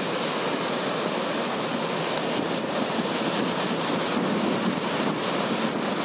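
Sea surf breaking on the beach: a steady wash of waves, with strong wind blowing over the microphone.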